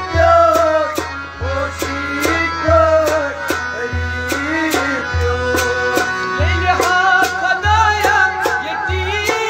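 Electronic keyboard played live over a steady beat of low thumps and clicks, with a man's voice singing over it in the second half.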